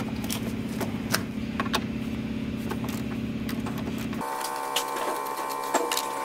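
Scattered metallic clicks and clinks as a battery cable terminal clamp is handled and worked off the battery post, over a steady mechanical hum that changes abruptly to a higher-pitched hum about four seconds in.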